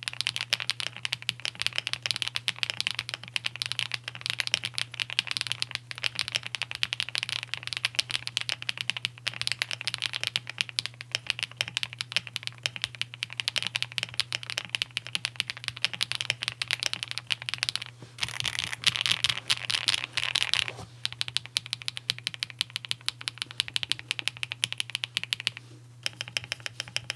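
Continuous fast typing on a KBDCraft Adam Lego-style keyboard fitted with HMX Sunset Gleam linear switches: a dense clatter of keystrokes, with a denser, louder flurry about two-thirds of the way through.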